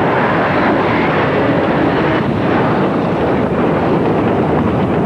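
Loud, steady rushing noise of a burning crude oil tank fire just after the tank exploded in a fireball.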